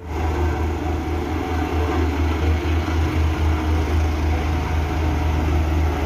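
BOMAG BW 212 D-40 single-drum road roller's diesel engine running steadily as the roller drives over the gravel, a deep drone with a fast low flutter.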